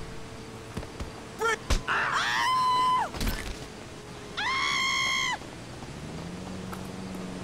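Two loud, high-pitched wordless yells, each about a second long, the first sliding up before holding its note and the second held on one note.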